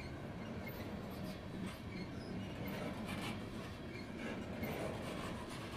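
Steady rolling noise of a long freight train of hopper cars passing on the rails, with scattered faint clicks and squeaks from the wheels and cars.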